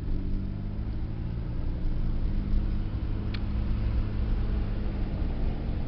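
Car engine and road noise heard from inside the cabin while driving, a steady low hum. A single short click sounds about three seconds in.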